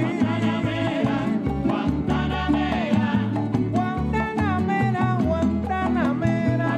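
Salsa music playing: a steady percussion beat under a bass line and melody.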